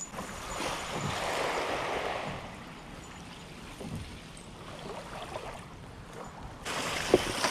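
Small waves washing against the shore: one swell about a second in, and another starting near the end, with a sharp click just after it.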